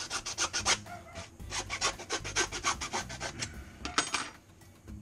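Quick back-and-forth rasping strokes of a hand tool working a short metal sink drain tailpiece, about five strokes a second, in two runs with a short pause between and a couple of last strokes near the end.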